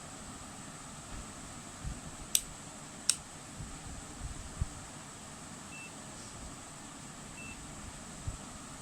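Digital multimeter being switched to continuity mode: two sharp clicks from its selector about two and three seconds in, a few soft handling knocks, then two faint short beeps, over a steady hiss with a thin high tone.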